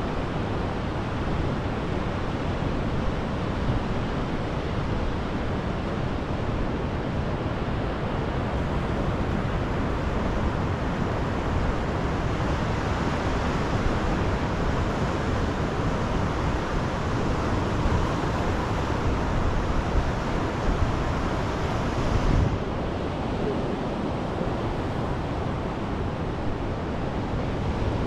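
Sea surf washing on a sandy beach, with wind rumbling on the microphone. The wash swells louder midway and falls away suddenly near the end.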